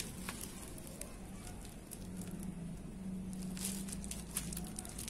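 Plastic bubble wrap crinkling and crackling as it is handled, in scattered short bursts.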